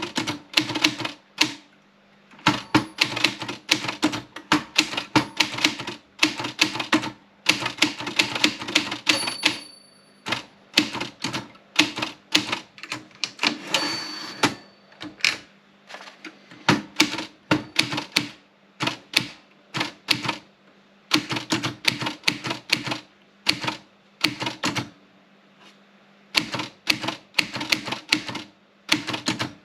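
Olympia Splendid 33 manual portable typewriter being typed on: quick runs of sharp key-and-typebar clacks in bursts with short pauses. Twice there is a brief ring of the end-of-line bell, the second with the carriage being returned.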